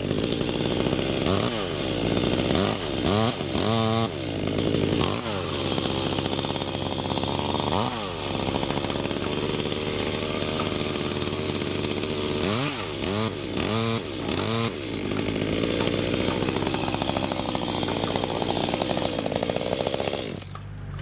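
Chainsaw revved again and again in short throttle bursts, its pitch rising and falling, then held in a longer, steadier run as it works on acacia (black locust) wood. It drops back abruptly near the end.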